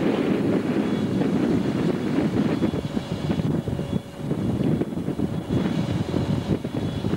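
Low, gusty rumble of wind buffeting the microphone, uneven from moment to moment.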